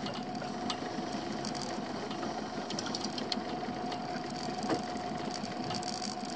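Fishing reel being wound steadily against the pull of a hooked fish, a steady mechanical whirr with light clicks.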